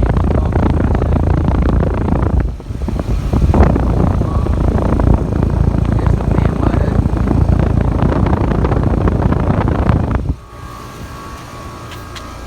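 2013 five-ton American Standard heat pump outdoor unit running in cool mode, its condenser fan's airflow buffeting the microphone as a loud rushing noise. About ten seconds in the rush drops away suddenly, leaving a quieter steady hum with a thin high tone.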